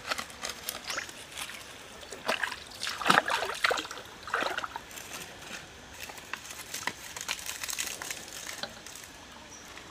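Water splashing and trickling in irregular splashes, loudest and busiest between about two and five seconds in.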